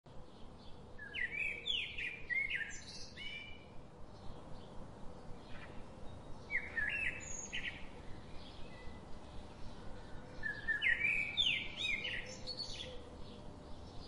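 A songbird singing in three short phrases of quick whistled notes that rise and fall, a few seconds apart.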